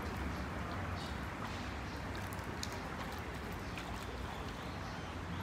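Shallow stream water running steadily over stones, with a low hum underneath and faint light splashes as a little egret thrashes a large loach in the water.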